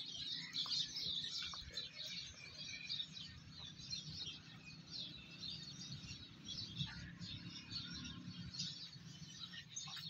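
Many small birds chirping and twittering, a dense chatter of short high chirps, over a steady low rumble.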